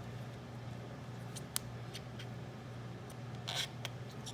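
Light clicks and handling noises from hands working on a lawn mower's carburetor, with a short hiss about three and a half seconds in, over a steady low hum.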